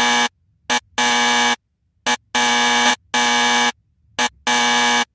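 Electronic buzzer sounding in a repeating pattern: a short blip, then a longer buzz of about half a second, roughly every second and a half, on one steady buzzy pitch.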